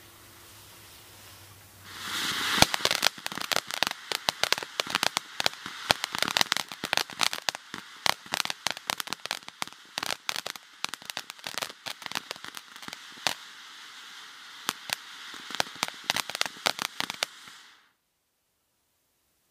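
'Calling All Cars' firework fountain spraying sparks with a steady hiss and dense, irregular crackling pops. It starts about two seconds in and cuts off suddenly near the end.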